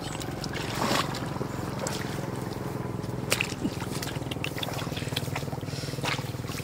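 Hands splashing and grabbing fish in shallow muddy floodwater, with a few short sharp splashes, the sharpest about three seconds in, over a steady low hum.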